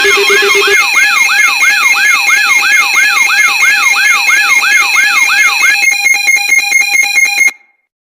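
Layered electronic alarm tones: a rising whoop repeating about three times a second over steady high beeps and a low pulsing beep that drops out just under a second in. Near the end it switches to a rapid stutter of beeps, then cuts off suddenly.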